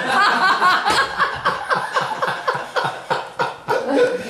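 A man laughing hard at his own joke's punchline, a long run of quick, breathy bursts of laughter.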